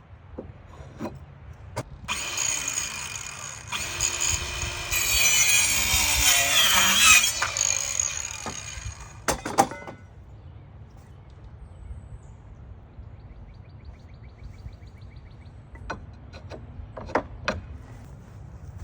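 RYOBI 18V ONE+ 4-1/2-inch cordless circular saw spinning up about two seconds in and cutting through 2x4 lumber, loudest partway through the cut, then stopping after about seven seconds. A sharp knock follows, and a few clicks come near the end.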